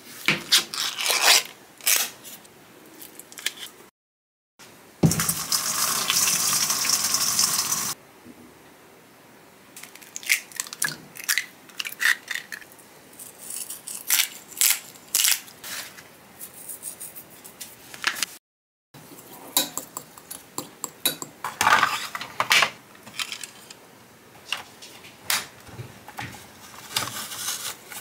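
Kitchen food-preparation sounds: the ring pull of a tinned-meat can being peeled open near the start, then a string of clicks, taps and clinks of utensils and glassware, with a few seconds of steady hissing noise in between.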